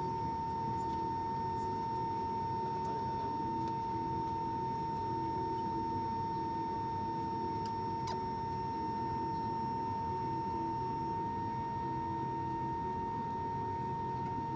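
Steady high-pitched whine over a low rumble, the hum of a parked airliner heard from inside its cabin; the whine steps up slightly in pitch about eleven seconds in.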